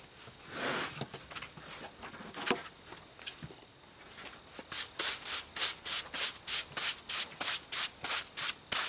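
Broom sweeping sawdust off a freshly sawn sweet gum cant in quick, even strokes, about three a second, starting a little under five seconds in. Before that, a sawn board scrapes as it is slid off the cant, and there is a single knock.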